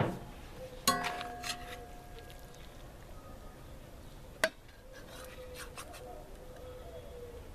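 Metal serving spoon clinking and scraping against a steel plow-disc pan and an enamelware plate as rice is dished out. There is a ringing clink about a second in and a sharp tap about four and a half seconds in.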